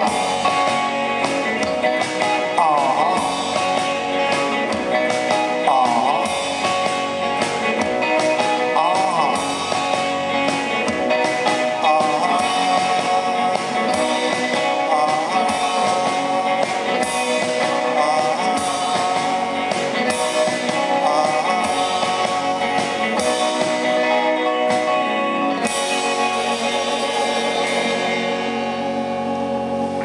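Live indie rock band playing: electric guitars and keyboard over a steady drum beat, with a voice singing. About 26 seconds in the beat stops and the chords ring out as the song closes.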